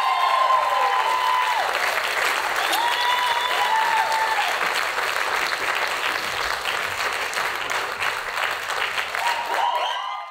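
Theatre audience applauding steadily, with several long, high whooping cheers over the clapping.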